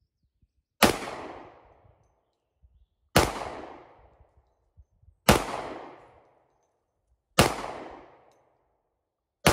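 Kimber Rapide Black Ice 10mm pistol firing five single aimed shots about two seconds apart. Each shot is followed by an echo dying away over about a second. The pistol cycles through the string without a failure to eject.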